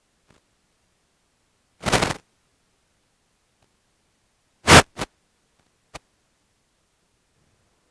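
Short noisy bursts: one about two seconds in, then a pair close together about five seconds in, and a faint click at six.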